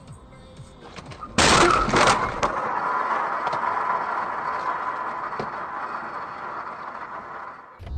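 Car collision heard from inside the car: a sudden loud crash of the impact about a second and a half in, with breaking and cracking, followed by a steady hiss that slowly fades over several seconds.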